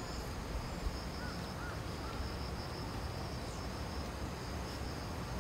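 Outdoor ambience of insects trilling in a steady, pulsing high chorus over a low rumble. Three faint short chirps come a little over a second in.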